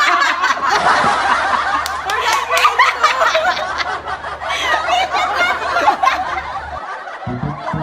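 A small group of young women and a man laughing hard together, several shrieking and cackling at once. About seven seconds in the laughter cuts off and a few notes of flute-like music begin.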